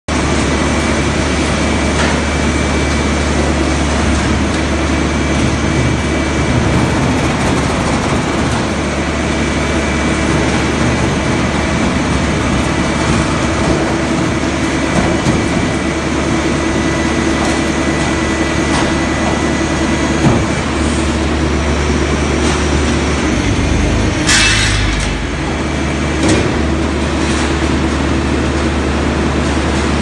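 RR5 car baler at work: its hydraulic drive runs with a steady low drone while the press compacts scrap metal in the box. Near the end there is a short burst of harsh metal grinding and creaking as the scrap gives under the press.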